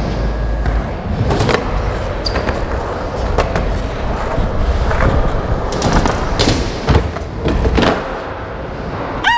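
Skateboard wheels roll steadily across a concrete floor, with several sharp clacks of the board's tail and deck hitting the ground. The sound echoes in a large warehouse hall. A short squeak comes right at the end.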